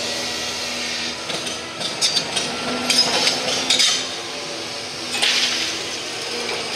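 Hydraulic demolition excavator with a grapple tearing into a brick house: its diesel engine runs steadily under repeated clattering crashes of falling bricks and roof debris, in a cluster from about one to four seconds in and again a little after five seconds.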